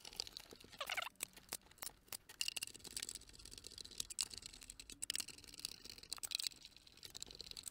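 Hand screwdriver driving screws into the plastic case of a soldering station: irregular small clicks and scrapes, with a few short squeaks as the screws turn and the case is handled.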